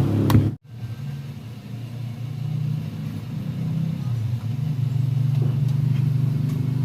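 A steady low hum that cuts out suddenly for a moment about half a second in, then carries on.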